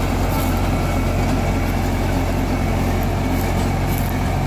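Eicher 551's three-cylinder diesel engine running steadily under load, pulling a tractor-mounted rotavator that churns through wet soil on a first tilling pass in second gear, low range.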